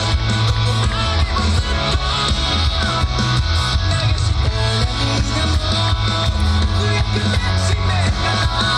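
Loud yosakoi dance music playing continuously, with a steady, heavy bass line under dense instrumental layers.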